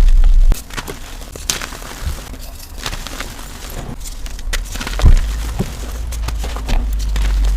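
Chalk being crushed and broken: an irregular run of sharp cracks and crunches, with a louder snap about five seconds in, over a steady low rumble.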